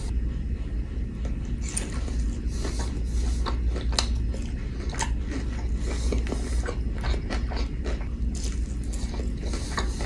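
Close-miked eating: chewing on fries and a fried chicken tender, with many small crunches and wet mouth clicks, over a steady low hum.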